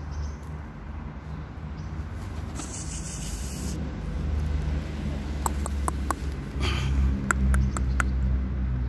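Outdoor ambience with a steady low hum of traffic, a brief hiss about three seconds in, and a series of short, sharp high chirps or ticks in the second half.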